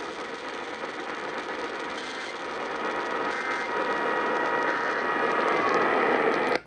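Radio static: a dense hiss with a few faint steady tones under it, growing slightly louder and then cutting off suddenly near the end.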